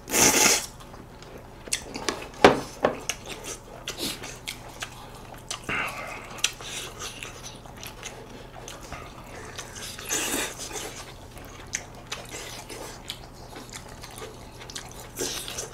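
Close-miked eating: noodles slurped near the start, then chewing and scattered clicks of chopsticks and spoons against plates and bowls, with a sharper clack about two and a half seconds in.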